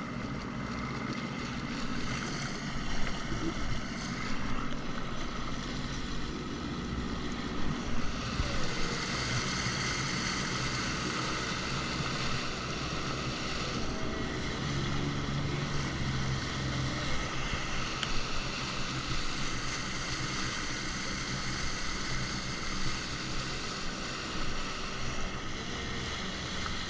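Jet ski engine running steadily under way, with wind on the microphone and rushing water, and a few brief louder bumps.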